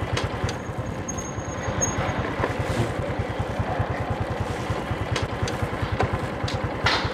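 A small vehicle engine running steadily at low speed, with an even low pulse and a few faint clicks.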